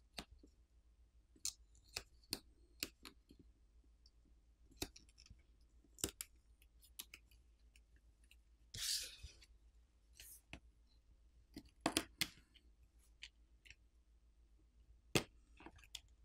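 Faint, scattered clicks and taps of a smartphone's plastic internal cover and a pry tool being handled. About nine seconds in there is a short scraping rustle as the cover is worked loose and lifted.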